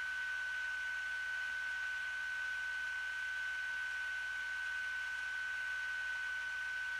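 A steady high-pitched tone over an even hiss, unchanging, with no sound from the water or the boat: noise from the transfer of a silent home movie.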